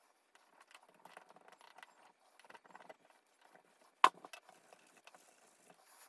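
Rag rubbing and light handling clicks of a straight razor while its scales are polished with compound, with one sharp knock about four seconds in.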